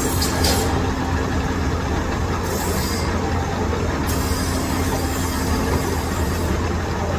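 Metal lathe running with a steady low hum and a faint steady whine; a high hiss comes and goes several times.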